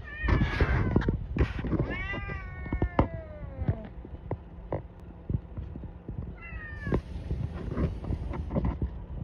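Cat meowing three times, the middle call long and falling in pitch, with scattered light taps and knocks in between.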